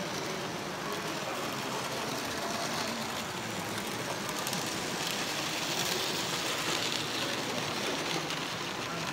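Tri-ang TT gauge model train running on its track: a steady rattling whirr of small wheels and motor, getting louder and brighter as the train passes close about six to eight seconds in.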